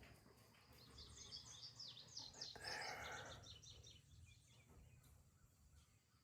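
Faint birds chirping in a quick run of high notes, with a brief noisy sound about halfway through.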